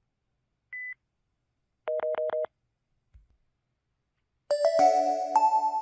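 Electronic system tones from a PT-K2300 device's speaker: a short high beep, then four quick pulses of a two-note tone, then a bright multi-note electronic chime melody starting near the end.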